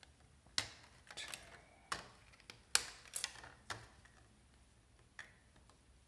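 Black plastic drive trays of a Synology DS418play being handled: about ten sharp, irregular plastic clicks and clacks, bunched in the first four seconds, with one more near the end.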